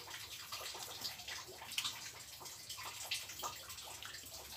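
Close-up eating sounds of fried catfish in sambal eaten by hand: wet, sticky finger and mouth smacks and small clicks, scattered irregularly.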